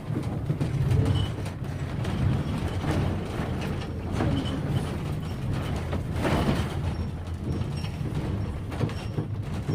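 Train rolling along the track heard from aboard a passenger car: a steady low rumble with scattered clanks and knocks, and a few faint high squeaks in the second half.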